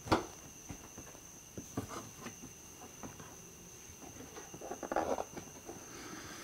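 Plastic clicks and knocks as a Honda S2000's front bumper cover is pushed into place by hand: one sharp snap at the very start, a few lighter clicks about two seconds in, and rubbing near five seconds. A steady high-pitched tone sounds in the background.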